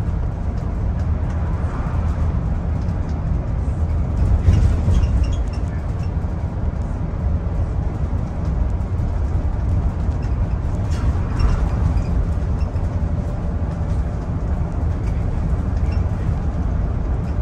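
Bus running on a journey, heard from inside: a steady low rumble of engine and road noise, with occasional light clatter.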